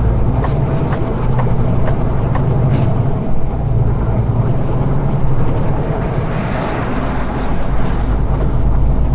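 Semi truck's diesel engine running with a steady low drone, heard from inside the cab while driving slowly, with a few light clicks in the first few seconds.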